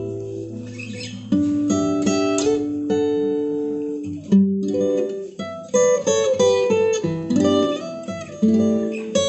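Solo acoustic guitar played fingerstyle: picked melody notes ring and fade over held bass notes, with a brief break about four seconds in.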